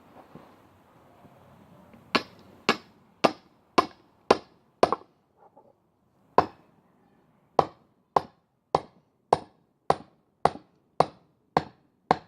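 A run of sharp hammer strikes at about two a second, with a short break in the middle: a hammer tapping the Roughneck wood grenade, a splitting wedge, to set it into a log.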